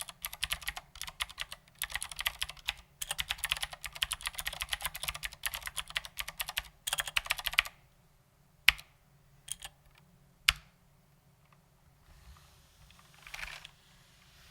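Fast typing on a mechanical keyboard with clicky Cherry MX Blue switches under tall SA-profile ABS doubleshot keycaps, a rapid run of keystroke clicks. The typing stops about three-quarters of the way in, leaving a few single keypresses.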